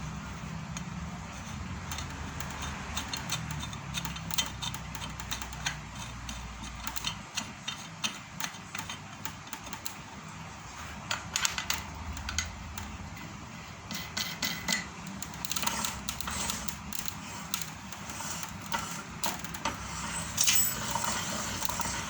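Metal parts of a meat-grinder-type feed pellet machine clinking and knocking irregularly as they are handled and fitted together by hand. A low hum underlies the first seven seconds or so, then stops.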